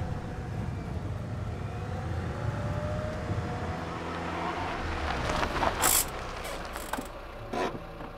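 Cartoon sound effect of a small car's engine running with a steady low rumble, with a few short noisy bursts about six and seven and a half seconds in.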